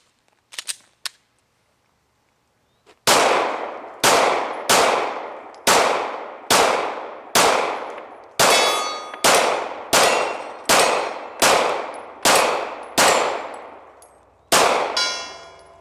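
Glock 19 9mm pistol firing about fourteen shots at a steady pace, roughly one a second, with a longer gap before the last. Several shots are followed by the metallic ring of steel targets being hit. A few light clicks of the pistol being handled come about a second in.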